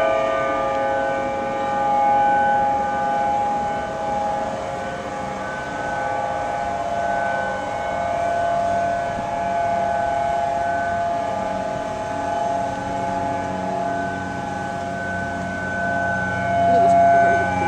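Civil defense warning sirens sounding a tsunami warning: several steady tones held together, swelling and easing slightly in loudness.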